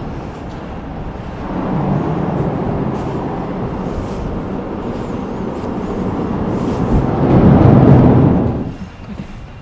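Motorcycle engine running under way, the note building, swelling loudest near the end, then falling away sharply.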